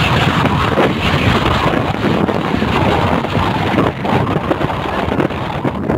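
Strong typhoon wind buffeting the phone's microphone: a loud, rough, fluttering rush that rises and falls in gusts.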